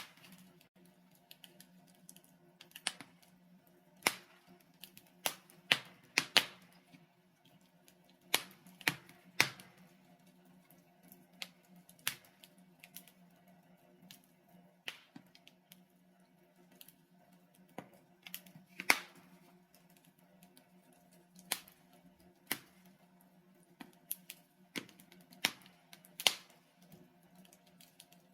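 Wood fire crackling in a fireplace: irregular sharp pops and snaps from the burning logs, some close together, some seconds apart, over a low steady hum.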